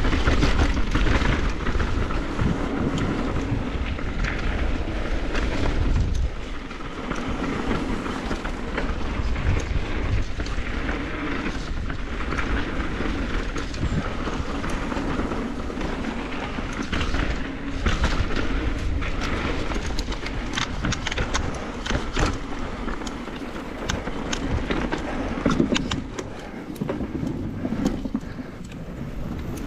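Downhill mountain bike rolling fast over a rough dirt trail: tyres crunching over dirt and stones, with the bike rattling and clattering over bumps. A heavy wind rumble on the camera's microphone eases off after about six seconds.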